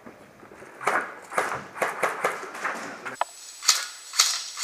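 Footsteps on a hard floor at a quick walking pace, about two to three steps a second, each with a light clatter of carried kit.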